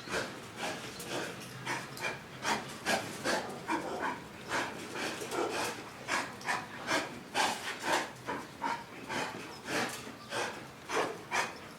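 A dog breathing hard and noisily in quick, even breaths, about two or three a second, panting or sniffing.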